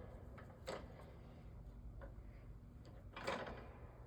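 Faint workshop handling noises: a sharp click less than a second in and a brief, louder scrape or clunk about three seconds in.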